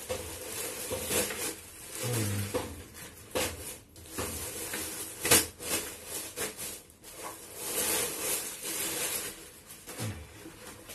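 Plastic packaging rustling and crinkling as a plastic courier mailer and the plastic wrap around a backpack are torn open and handled, with a sharp crackle about five seconds in.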